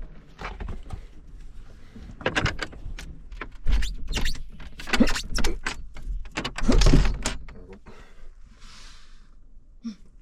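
A run of knocks and clatters, with some rustling near the end, as a door or lid is handled and opened.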